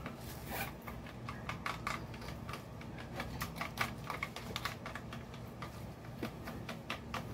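Plastic dye brush clicking and scraping against a plastic tray as hair dye is stirred, in quick irregular taps, over a faint low steady hum.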